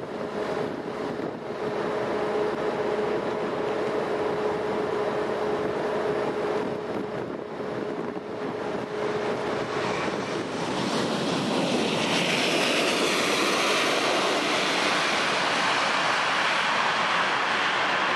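Airbus A340-600's four Rolls-Royce Trent 500 turbofans on final approach: a steady hum over a whooshing rush. About ten seconds in it gives way to a louder, broad roar from the engines as the airliner runs along the runway.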